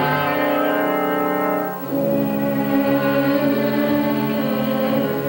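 Cartoon orchestral underscore: sustained chords with held notes, the harmony changing about two seconds in.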